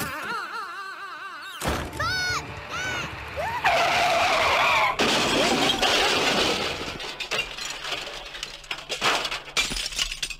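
Cartoon crash sound effects: a loud impact about a second and a half in, short pitched cries, then a long loud stretch of shattering and breaking that thins into scattered clatters and fades out.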